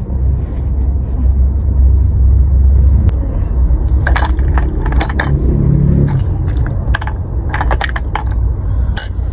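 Metal spoon clicking against a boiled duck egg's shell and a china plate, a run of sharp clicks over the last six seconds or so. A steady low rumble runs underneath.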